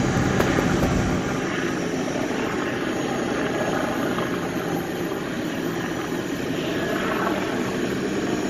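News helicopter flying overhead: a steady drone of rotor and engine.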